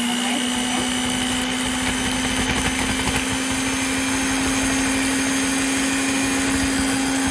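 Electric hand mixer running steadily at speed, its beaters whipping a cake cream mixture in a glass bowl, with an even motor hum and whine.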